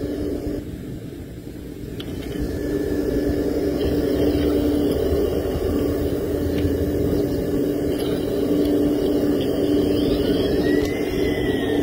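Radio-controlled model excavator's electric motor running with a steady whine while the arm and bucket dig into sand. It dips about a second in and builds back up over the next few seconds.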